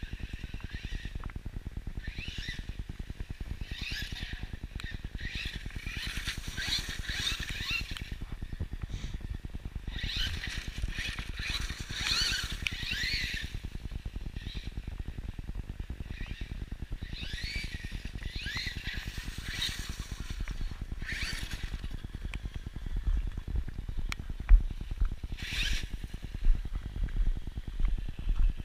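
Wind rumbling on an action camera's microphone, with short high warbling bursts every few seconds. Near the end come louder thumps and knocks as the camera is moved.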